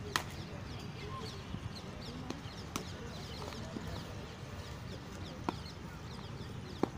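Several sharp knocks of cricket bats striking balls in practice nets, the loudest just after the start and others scattered through, over constant chirping of birds and a murmur of distant voices.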